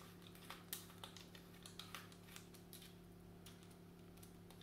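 Faint, scattered small clicks and taps as a small screwdriver and fingers work small parts on an airsoft rifle's receiver, over a low steady hum.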